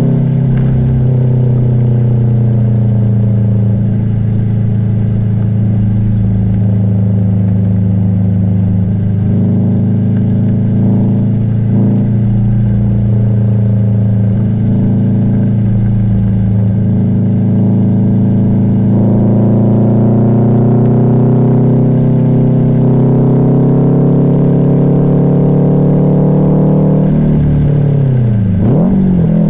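Subaru WRX STI's turbocharged 2.5-litre flat-four engine and exhaust running under way with a steady low rumble, getting fuller under more throttle partway through. Near the end the engine pitch drops sharply and comes back up, as in a gear change.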